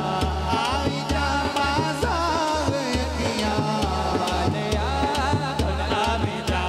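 Male voice singing a devotional naat in a wavering, ornamented line over a steady beat on a hand-played frame drum (daf).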